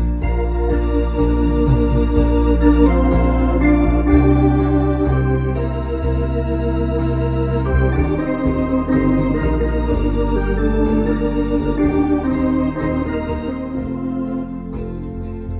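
Lowrey Grand Royale home organ playing a melody over sustained chords and held bass notes, with a steady light percussion beat ticking along.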